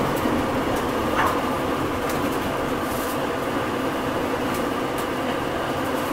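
Cabin noise aboard a Hino Rainbow non-step bus: a steady hum from the running bus, with a few faint clicks.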